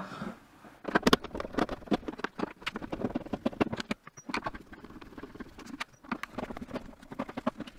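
Irregular clicks and taps of a Phillips screwdriver working screws out of a Cricut Maker 3's plastic base, with the small screws set down on a silicone work mat.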